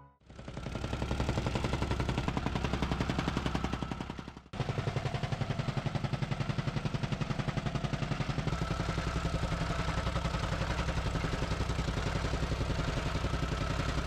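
Gas-powered jumping-jack rammer running, its foot pounding the soil subgrade in a rapid, even beat as it compacts the base before the concrete pour. The sound drops out briefly about four and a half seconds in, then resumes.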